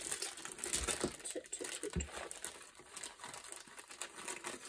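Wrapping on a rolled diamond-painting canvas rustling and crinkling as it is handled, with a couple of soft knocks.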